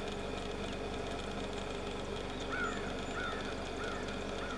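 Steady hum of camera operating noise picked up by a camcorder's built-in microphone. From about halfway in, a bird calls four times in short, evenly spaced notes.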